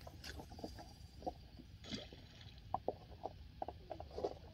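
Small waves lapping and gurgling among shoreline rocks, in short irregular splashes.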